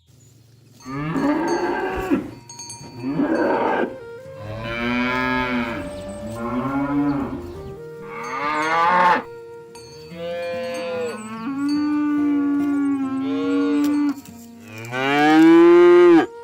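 Cattle mooing repeatedly: about six long moos from more than one animal, some overlapping, with the loudest moo near the end.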